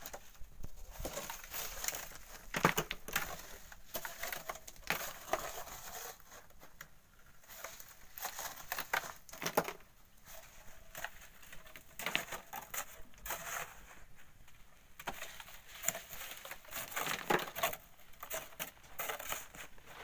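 Hand digging and sifting of volcanic sand: a hoe scraping and crunching into sand and gravel, and grit rattling through a wire-mesh sieve into a wheelbarrow, in short irregular strokes.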